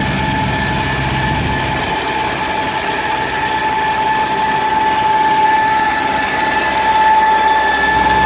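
PTO-driven pump of a 2,200-gallon dust suppressor tanker running, with a steady high whine over a constant mechanical noise; a low rumble eases after about two seconds.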